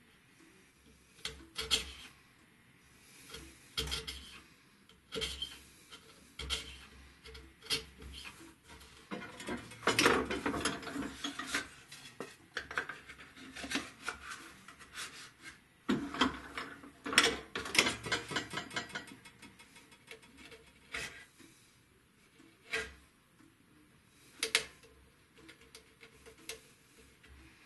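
Narrow steel hand tool scraping and paring the end grain of walnut dovetail tails held in a vise: separate short scrapes, with two stretches of quick repeated strokes in the middle.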